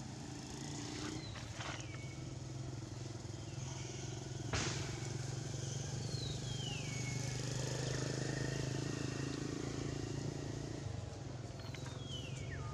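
A steady low engine hum that grows louder toward the middle and eases off near the end, with a sharp click about four and a half seconds in. Twice a high whistled call slides downward.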